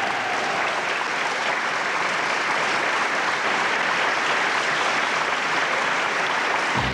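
Sustained applause from a large assembly in a parliamentary chamber, steady throughout.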